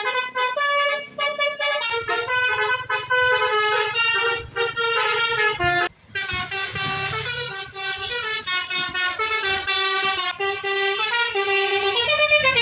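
Basuri V3 telolet horn on a bus playing a rapid tune of changing notes, with a short break about six seconds in.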